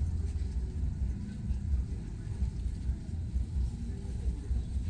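Busy street-market ambience: a low, uneven rumble with faint voices in the background.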